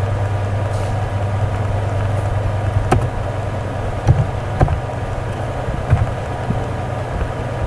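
A steady low electrical hum with hiss over it, and a few separate sharp clicks of computer keyboard keys being typed.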